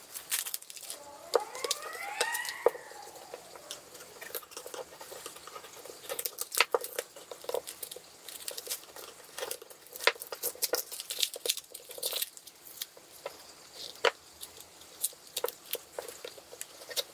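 Paper and thin cardboard tearing and crackling as the glued top layer of a cardboard eyeshadow palette is peeled off by hand: an irregular string of sharp crackles, with a short squeaky sound about two seconds in.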